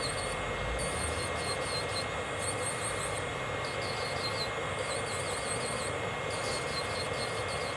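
Electric nail drill with a soak-off bit running on gel nails: a steady high whine over an even grinding hiss, with clusters of high-pitched squeaks coming and going.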